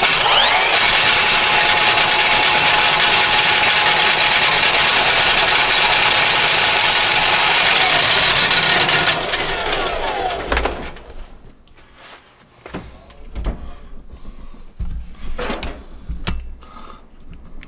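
Milwaukee M18 cordless drain snake running, its spinning cable working into a clogged 1½-inch kitchen drain line, with a steady whine over loud mechanical noise. The motor winds down with a falling pitch about nine seconds in. Scattered light knocks and clicks follow.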